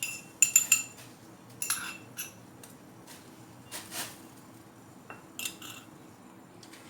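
Steel kitchen utensils clinking: a metal spoon knocking against steel vessels in a few short clusters of ringing clinks, over a faint steady hum.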